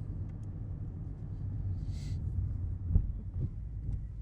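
2020 Ford Mustang's engine and exhaust, running a ghost-cam tune, with the exhaust switched to quiet mode: a low, steady rumble while cruising slowly. A thump about three seconds in.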